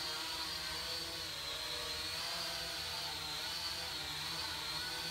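Holy Stone HS110D toy quadcopter's motors and propellers whirring in flight, a high steady whine that wavers slightly in pitch.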